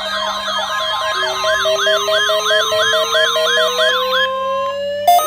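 Several electronic sirens sounding at once: fast yelp sweeps, two or three a second, over a pulsing tone, with a slow wail climbing steadily in pitch from about a second in. The yelps stop near the end while the wail keeps rising.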